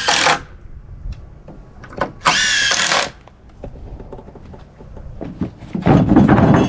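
Power drill running in short bursts, likely driving screws into the catio's wood frame. It gives a high whine that rises in pitch at the start and again about two seconds in, then a louder, lower grinding run near the end.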